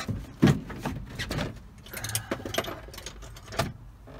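Carpeted rear interior trim panel of a Nissan 240SX being pulled and worked loose from the bare body: a series of knocks, scrapes and rustles, the loudest a sharp knock about half a second in.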